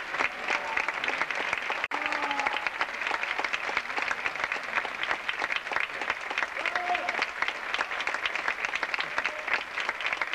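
Theatre audience applauding steadily for a ballet, with a few voices calling out over the clapping. The sound cuts out briefly about two seconds in.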